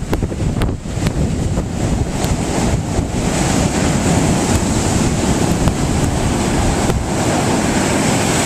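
Ocean surf breaking and washing up over the sand, a continuous rushing roar, with wind buffeting the microphone.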